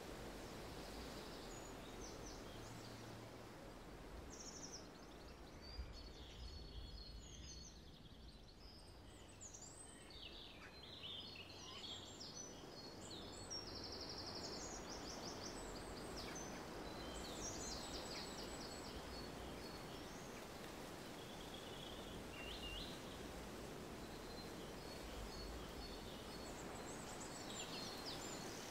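Outdoor ambience: a steady faint background hiss, with small birds chirping and trilling on and off throughout, busiest in the middle.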